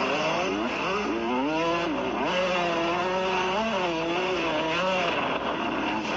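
Youth dirt bike engine under way, its pitch climbing and dropping several times with the throttle.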